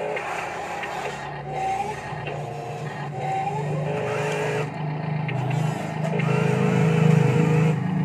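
Remote-control Huina toy wheel loader driving over dirt, its motors and gears whirring steadily. It gets louder about six seconds in as it drives away.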